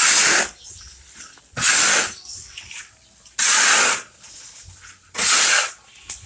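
Hot sand being stirred and turned in a wok to fry kerupuk melarat crackers, a rhythmic hissing swish at each stroke, about one every 1.7 seconds, with quieter scraping between.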